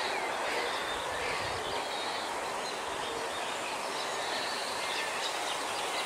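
Steady outdoor ambience of a grassy wetland: an even background hiss with faint, scattered bird chirps.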